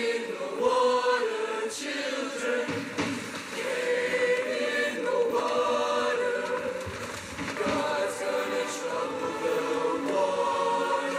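A large mixed show choir singing in harmony, several voices holding notes together and moving to a new chord about every second or two.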